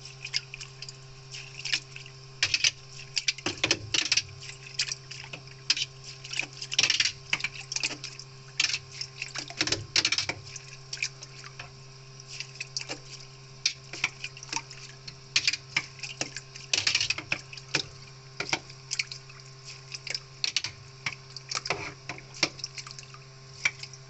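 Water splashing and dripping in irregular bursts as a metal mesh strainer is swept through the water in a top-loading washing machine tub and lifted out, skimming off grime loosened by tub cleaner.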